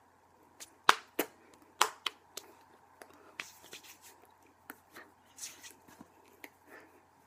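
Hands slapping, tapping and brushing against each other while signing in American Sign Language. A run of sharp claps and snaps comes in the first two and a half seconds, then softer rustles and scattered taps.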